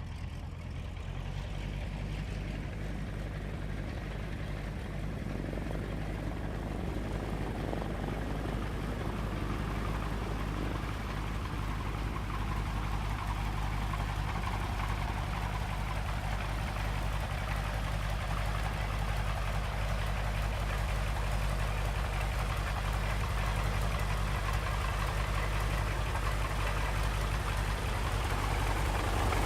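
Early propeller aircraft's piston engine running steadily with a low, even hum, slowly getting louder.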